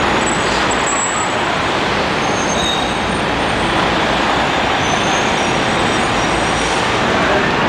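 Busy city street traffic noise with a transit bus's engine running as it drives past, a steady roar.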